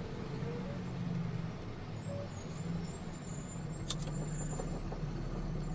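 Steady low engine hum and road noise heard inside a vehicle's cab while it moves slowly in traffic, with a single short click about four seconds in.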